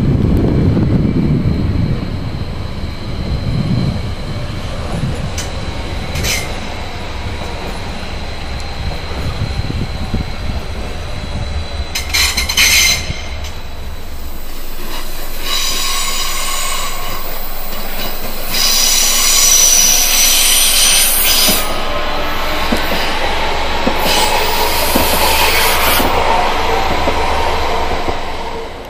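Electric multiple-unit passenger trains running slowly through a railway station, wheels and rails rumbling. Short clatters come over the points, and high wheel squeal rings out repeatedly, longest in the second half.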